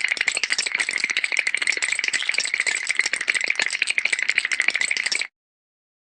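Cartoon teeth-chattering sound effect: a rapid, dense rattle of clicks that cuts off suddenly about five seconds in.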